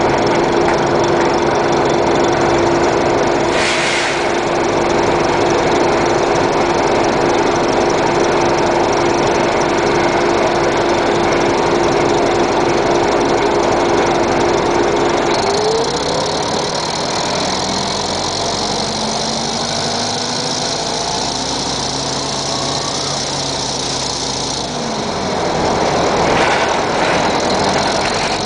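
Detroit Diesel Series 50 four-cylinder diesel of a 1996 NovaBUS RTS transit bus idling. A steady whine rides over it, then rises and cuts out about halfway, after which the engine note changes; a brief hiss comes about four seconds in.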